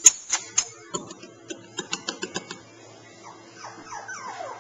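Cockapoo puppy claws clicking on a hardwood floor in a quick run of sharp ticks, then puppy whining in short falling cries from about three seconds in.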